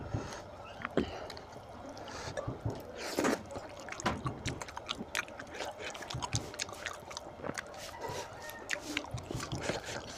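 Close, wet chewing and lip-smacking with many small clicks, and squelching as curried goat-head meat is pulled apart by hand.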